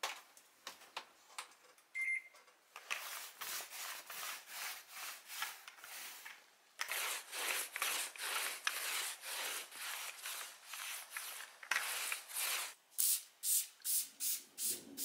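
A short electronic beep about two seconds in; then a sticky lint roller rolled quickly back and forth over a fabric sofa cushion, a crackly rubbing stroke about three times a second. Near the end, a trigger spray bottle sprays about seven times in quick succession.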